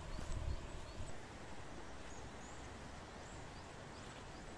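Quiet outdoor ambience with a small bird chirping repeatedly in short rising notes. In the first second there are low rumbles and a couple of light knocks from handling the metal tripod stand.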